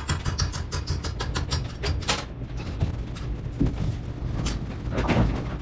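Metal clicking and clanking as a locked-up pulley and spring-clutch assembly from an AMF 82-30 vertical ball lift is worked by hand with a tool. A quick run of small clicks comes in the first couple of seconds, then scattered knocks.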